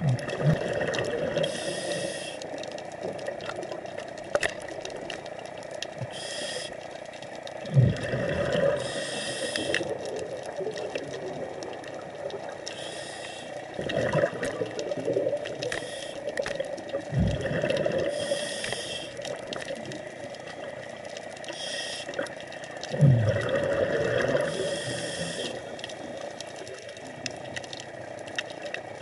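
A scuba diver breathing through a regulator underwater, several breaths a few seconds apart. Each breath is a hissing inhale followed by a low, bubbling rush of exhaled air.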